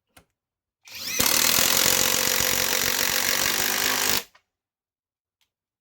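Greenworks Pro mid-torque cordless impact wrench hammering as it drives a large fastener home: it spins up about a second in, impacts steadily for about three seconds, then stops suddenly.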